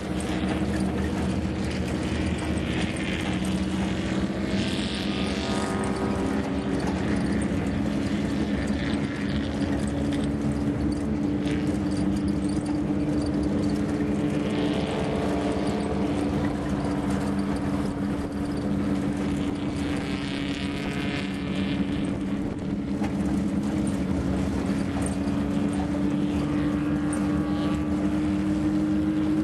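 Engines of vehicles moving in a slow line at a steady, even speed, a constant drone with little change in pitch, over a haze of tyre and gravel noise.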